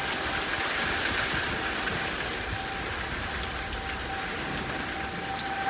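Steady heavy rain falling, with a distant tornado warning siren holding one tone that swells and fades.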